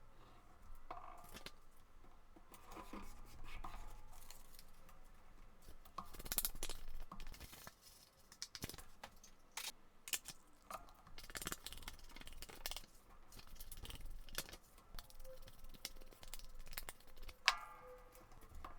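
Paper being handled, folded and creased by hand: irregular rustling with scattered clicks and taps, and one sharp click near the end.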